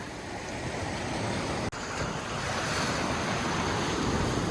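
Surf washing against the shore with wind buffeting the microphone. The sound drops out for an instant a little under two seconds in.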